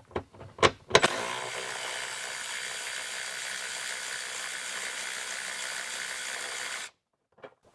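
Ratchet wrench backing off the 10 mm nuts that hold a fuel pump relay module: a few sharp clicks, then about six seconds of rapid, even ratcheting that stops suddenly.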